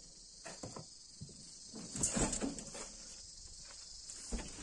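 Steady high-pitched drone of insects, with a few scattered thuds and scrapes, the loudest about two seconds in.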